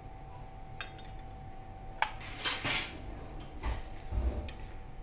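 Metal-on-metal clinks and clatter of a small steel bowl against a stainless-steel kadhai, with a sharp clink about two seconds in followed by the loudest clatter, then a few lighter knocks, over a faint steady hum.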